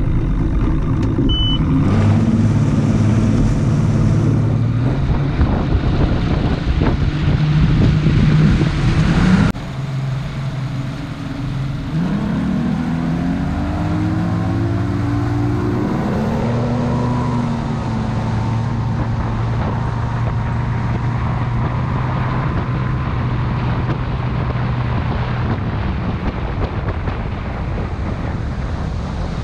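Boat outboard motor running under way. Its pitch rises from about twelve seconds in as it speeds up, then holds steady, over a constant rush of wind and water.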